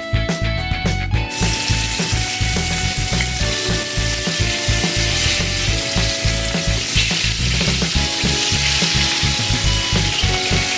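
Food sizzling and crackling in hot cooking oil, starting suddenly about a second in and continuing steadily, over background music with a steady beat.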